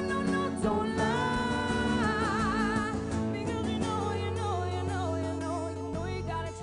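Live acoustic band music: a woman singing wordless held notes and runs with vibrato over acoustic guitar and bass. The bass drops out briefly about six seconds in.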